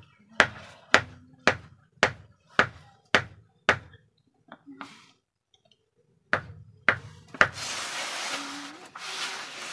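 Sharp knocks on the board under a cement pot mould, at a steady beat of about two a second. After a pause come three more knocks, then a rough rubbing, scraping hiss near the end.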